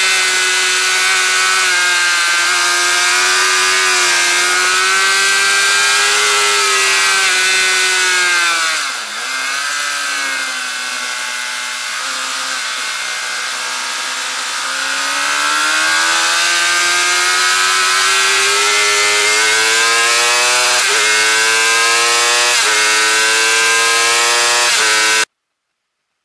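Suzuki GSX-R 750 K8's inline-four engine running at high revs, heard onboard with wind rushing over the microphone. The revs drop sharply about nine seconds in, stay lower for several seconds, then climb again. The sound cuts off abruptly just before the end.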